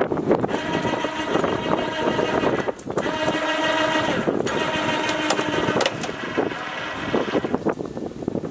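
Electric chain hoist motor running under load in spurts: a steady whine with light clicking, stopping briefly about three seconds in and again a second and a half later, then dropping away near the end.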